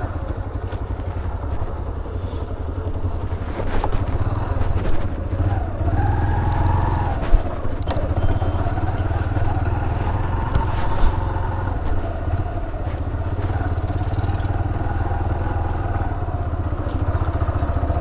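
Small motorcycle engine running steadily, with a few sharp knocks.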